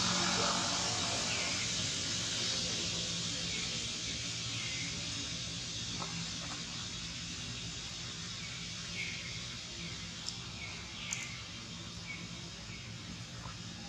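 Outdoor ambience: a steady high hiss with a bird's short falling chirps every second or two, and a few faint clicks.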